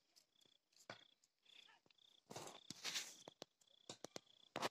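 Near silence in open grassland: a faint high chirp repeating about twice a second, and a short spell of rustling and handling noise a little after two seconds in as the phone is swung about.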